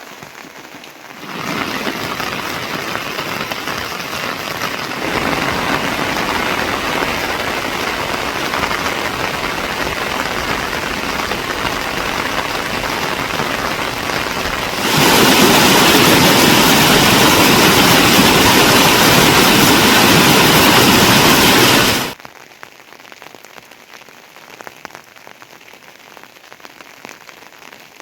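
Heavy monsoon rain with a dense steady hiss, stepping up in loudness twice and heaviest for several seconds in the second half. It then cuts off abruptly to a much fainter patter of rain.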